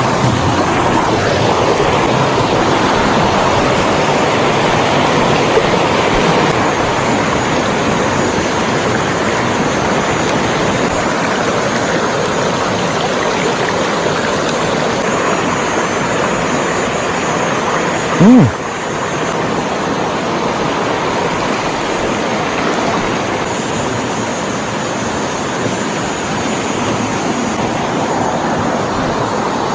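Rushing water of a shallow rocky stream pouring over stones and small cascades, a steady, even rush. One brief, loud, low thump comes about eighteen seconds in.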